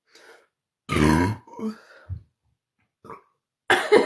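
A woman's loud, low-pitched burp about a second in, lasting about half a second, brought on by gulping cold cola. Smaller throat sounds follow, and another loud vocal sound starts near the end.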